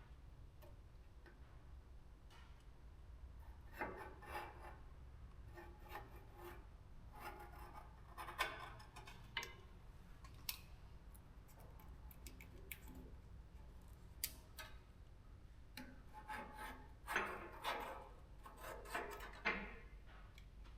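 Irregular hand rubbing and scraping strokes on a surface, in clusters about 4 s in, around 8 to 9 s, and from about 16 s on, with a few sharp clicks, over a low steady hum.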